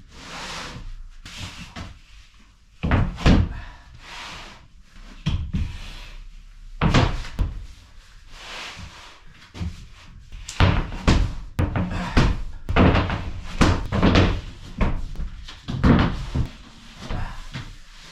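Irregular knocks and thumps of building work, a dozen or more sharp hits at uneven spacing, some close together near the end.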